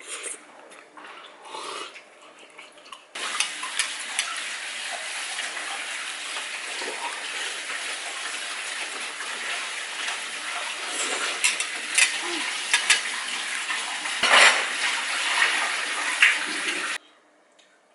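Dishes and cutlery clattering and clinking over a steady hiss that starts abruptly about three seconds in and cuts off suddenly near the end.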